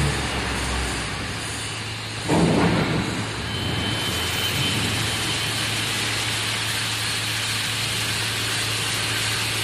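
Steady noise of a large factory hall with a constant low hum, and a brief louder rumble a little over two seconds in.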